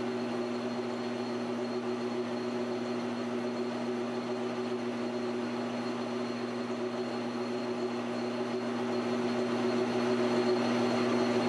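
Precision Matthews PM1236T metal lathe running steadily while turning a titanium ring on a mandrel: a constant machine hum with a few steady tones, getting a little louder near the end.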